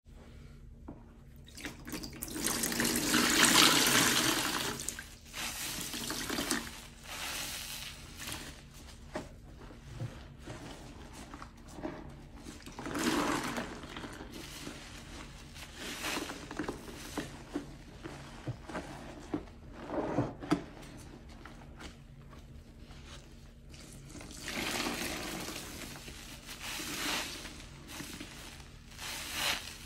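Rinsing a powder-dusted foam sponge in a basin of soapy water: a rush of water about two seconds in, then wet squelching and sloshing as the sponge is squeezed and kneaded by hand, with a second longer swell of sloshing near the end.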